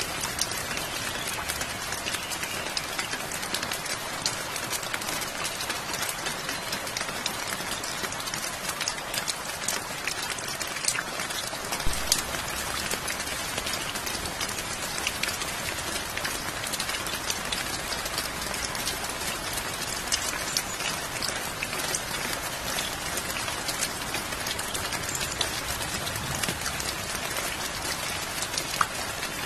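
Steady rain falling, a dense even hiss scattered with the patter of individual drops hitting a surface, with a few louder drop hits now and then.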